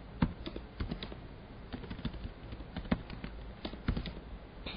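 Computer keyboard being typed on: short, irregular runs of key clicks as shell commands are entered.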